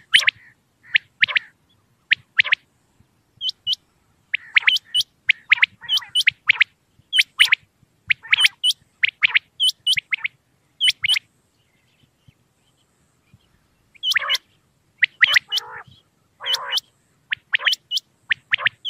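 Common quail calling: short, sharp notes that drop quickly in pitch, in quick clusters of two or three, with a pause of about two seconds just past the middle.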